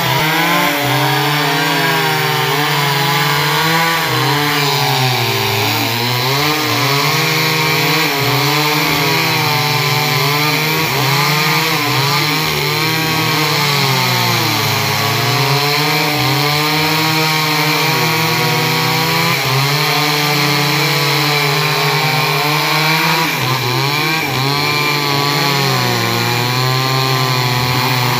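Two-stroke chainsaw running continuously while cutting teak wood, its engine pitch repeatedly dropping as the chain bites into the wood and rising again as it frees up.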